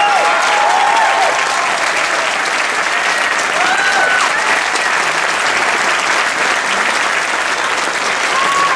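Audience applauding steadily after a dance performance, with a few voices calling out over the clapping.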